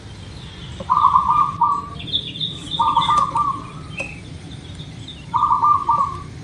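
Zebra dove (perkutut) cooing: three phrases, each a quick burbling run of notes closing on a longer coo, with some fainter high chirps from another bird between the first two.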